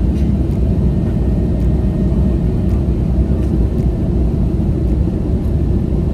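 Steady low rumble inside the cabin of an Airbus A321neo airliner on its descent: engine and airflow noise heard from a window seat, with no change in level.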